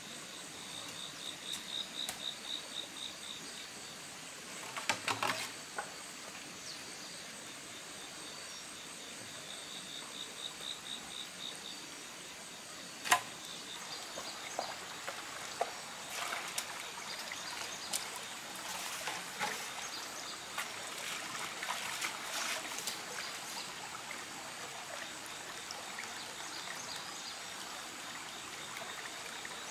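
A shallow rocky stream trickling steadily, with an insect's pulsing high trill twice in the first half. Scattered knocks and clatter of bamboo poles being handled, the sharpest about halfway through and a busy stretch of them in the second half.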